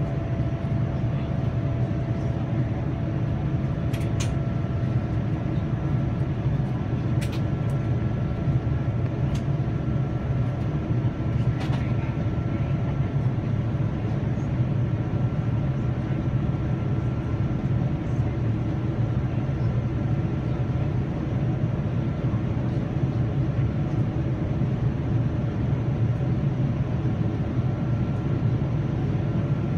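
Steady low drone of engine and airflow noise heard inside the passenger cabin of a Boeing 787-9 Dreamliner, with a faint steady high tone and a few faint clicks.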